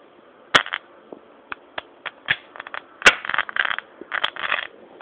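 Hydroxy (HHO) gas bubbles from an electrolysis cell popping as a torch flame ignites them: a run of sharp pops and crackles, the loudest about three seconds in.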